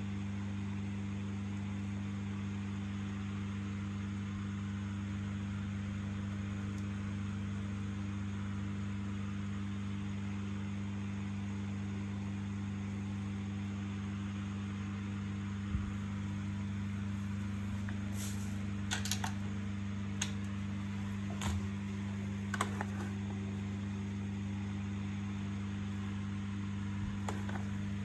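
A steady low hum, with a scattering of small clicks and light rattles about halfway through and again near the end.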